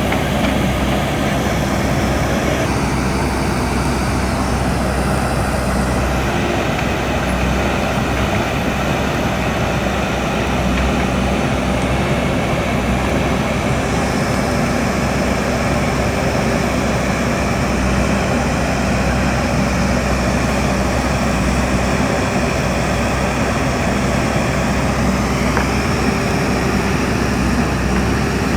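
Diesel engine of a JCB backhoe loader running steadily and loudly, its sound shifting a few times.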